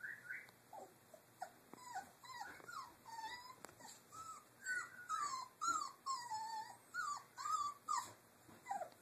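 Three-week-old Doberman puppies whimpering: a string of short, high-pitched cries that rise and fall in pitch, coming thicker from about four seconds in.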